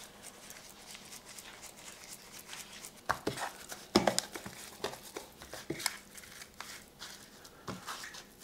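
Raw oxtails being mixed and turned by hand in their dry rub, with faint crinkling, then irregular rustles and wet clicks from about three seconds in.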